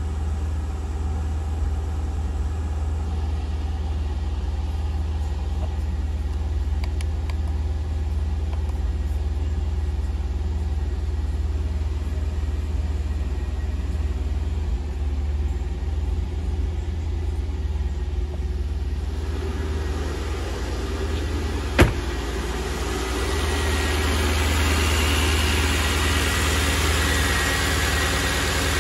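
Porsche Panamera Turbo's twin-turbo V8 idling steadily at about 1,000 rpm while warming up after a cold start. It becomes louder and fuller near the end, with a faint steady whine over it. One sharp click comes about 22 seconds in.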